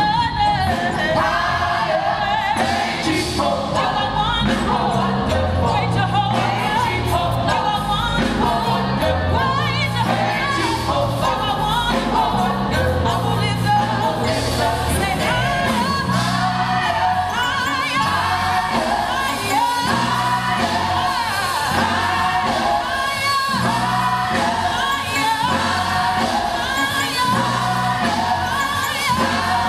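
Small gospel vocal ensemble singing into microphones, with several voices in harmony over an instrumental backing of a stepping bass line and a steady beat.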